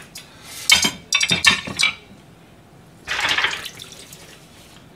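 Dishes clinking at a kitchen sink while being washed: a quick clatter of several knocks about a second in, then a short splash of running tap water about three seconds in.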